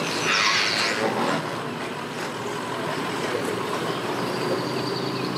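A vehicle engine running steadily while a boat trailer is hauled up a wet launch ramp, with a short hiss in the first second.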